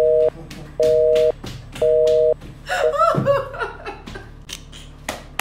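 Mobile phone's call-ended tone after the other party hangs up: three short, loud two-tone beeps about a second apart. A woman then giggles briefly about three seconds in.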